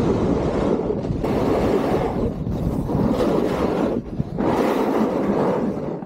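Snowboard sliding over firm snow, the board scraping in long stretches broken by brief lulls, with wind rushing over the microphone.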